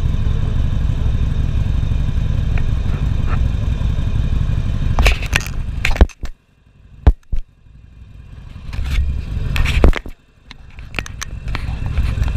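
Motorcycle engine idling steadily, then cutting out about six seconds in after a few clatters. A couple of sharp knocks follow in the quiet, and the engine is running again by the end.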